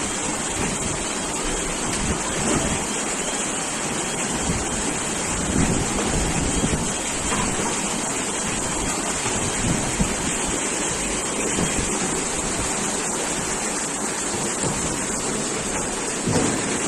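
Cyclone storm noise: a steady loud hiss with irregular gusts of wind buffeting the microphone.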